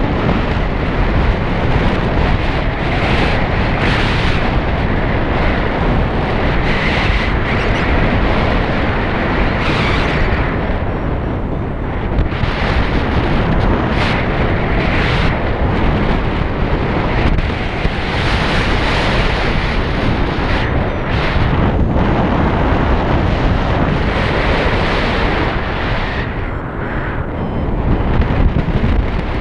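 Heavy wind buffeting on the microphone while riding at speed, a loud steady roar of rushing air with gusts that swell and fade every few seconds.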